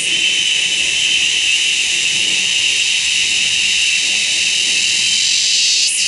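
Cicada singing one continuous, loud, high-pitched steady buzz.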